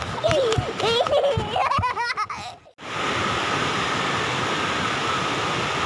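Voices laughing, then after a sudden break a steady rush of flowing water, like a stream.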